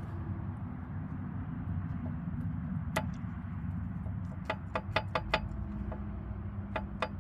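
Sharp metallic clacks of the loose cylinder-2 connecting rod being rocked by hand on the crankshaft journal of a Honda Accord 2.3-litre four-cylinder engine: one click about three seconds in, then repeated clicks at about four a second from about four and a half seconds on. The play comes from a worn rod bearing, the cause of the engine's rod knock. A low steady hum runs underneath.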